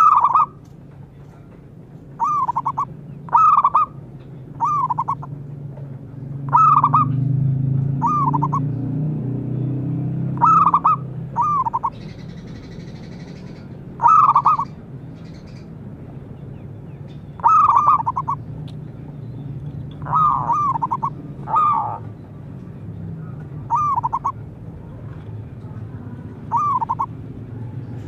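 Zebra dove (perkutut) calling: short, bubbling coo notes, given singly or in quick pairs one to three seconds apart.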